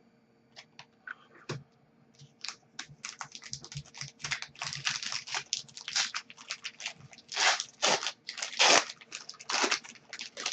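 Foil wrapper of a hockey trading-card pack crinkling and tearing as it is opened by hand: a few light clicks at first, then a dense run of crinkles from about two seconds in.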